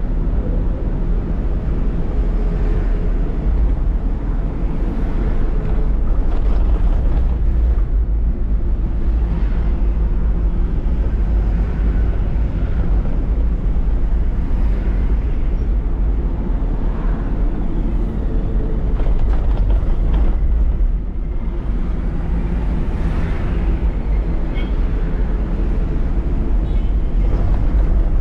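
Lorry on the move, heard from its cab: a steady low rumble of engine and road noise that swells slightly now and then.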